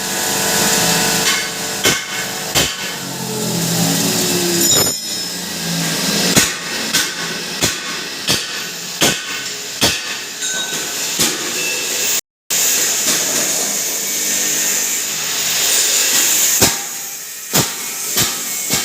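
Turmeric hammer mill pulverizer running with a steady high whirring hiss, and irregular sharp knocks and clatter throughout. The sound cuts out completely for a moment about twelve seconds in.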